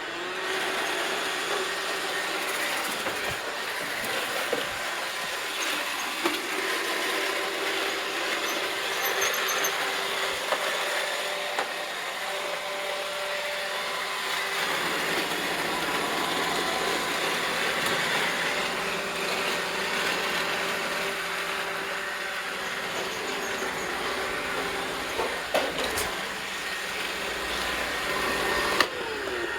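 Robot vacuum cleaner running: a steady whir with a hum that shifts a little in pitch partway through, and a few brief knocks near the end.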